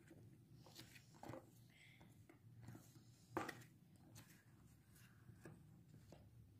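Faint scraping and clicking of a spoon stirring flour and water in a white tray, mixing play dough, with one sharper click a little past halfway over a steady low hum.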